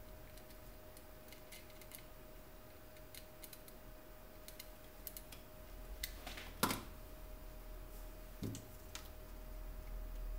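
Faint, scattered light clicks and taps of small tools and a circuit board being handled on a desk, with one sharper click about two-thirds of the way through and a soft knock shortly after. A faint steady tone sits underneath.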